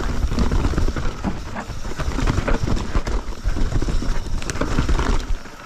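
Mountain bike descending a rough trail: tyres rumbling and the bike rattling and knocking over roots and rocks, a dense rumble with many sharp knocks that eases off near the end.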